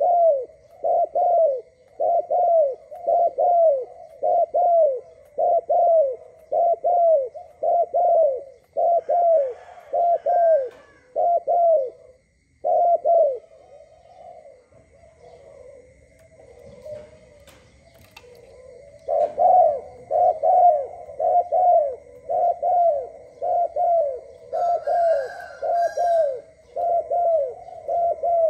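Spotted dove cooing: a long run of short, evenly repeated low notes, each dropping slightly in pitch. The cooing breaks off about halfway through and starts again some six seconds later.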